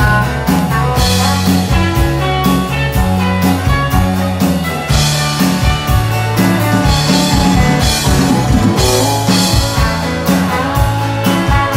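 Band playing a rock song: electric guitar, acoustic guitar and drum kit, with cymbal crashes every second or two.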